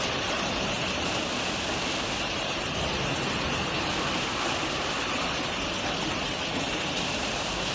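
Bowl-type bucket conveyor and the packing machinery around it running: a steady, even rattle and hiss with no distinct beat.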